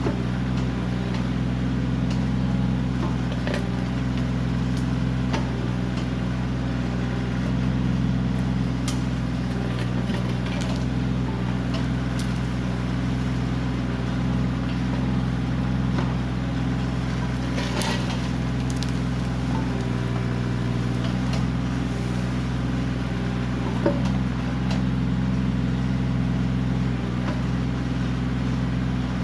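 Kioti CK20 compact tractor's diesel engine running steadily under load while its backhoe digs out shrubs, with a few sharp knocks and scrapes from the bucket, the clearest about two-thirds of the way through.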